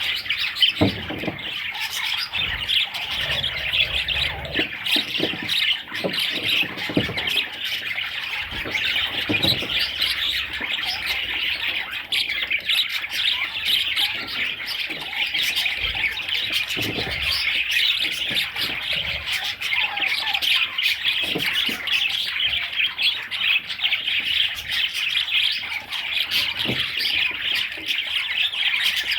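A group of budgerigars chattering, chirping and squawking without a break, many calls overlapping, with scattered light taps and clicks.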